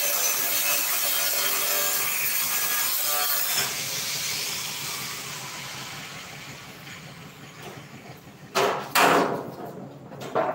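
Hand-held electric grinder cutting into a steel oil drum, a loud, steady screech, then winding down after about three and a half seconds. Near the end, a few loud clanks of the drum's sheet metal as the cut flap is pulled back.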